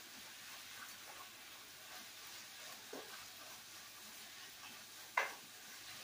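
Food sizzling faintly in a hot skillet while it is seasoned and stirred. There is a soft knock about three seconds in and a sharp, louder knock near the end.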